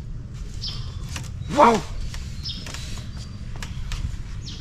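Bamboo walkway poles and slats creaking and clicking as a man's weight shifts on them while he steps down. A short voiced exclamation rises and falls about one and a half seconds in, over a steady low rumble of wind on the microphone.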